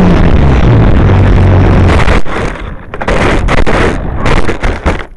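Motor and propeller of a radio-controlled model plane running steady and loud, heard through the plane's onboard camera with wind rush. About two seconds in, the sound breaks into a string of rough, loud bursts as the plane comes down and crashes into the ground, and it cuts off suddenly near the end.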